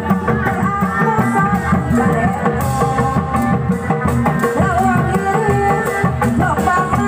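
Sundanese reak folk music played live: fast, dense drumming under a wavering lead melody.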